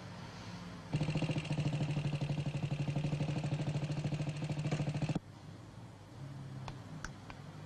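Small motorcycle engine ticking over with a rapid, even beat. It starts abruptly about a second in and stops abruptly about five seconds in. A few faint clicks follow.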